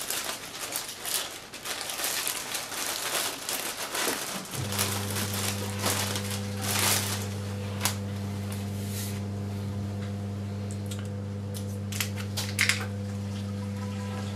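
Clear plastic vacuum bags crinkling and rustling as they are handled and smoothed flat on a stainless-steel counter. A few seconds in, a steady low electrical hum starts and carries on under a few light clicks.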